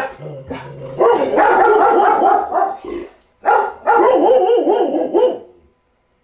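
Dogs barking in two long bouts of rapid, repeated barks, about two seconds each with a short break between. They are barking to be let out.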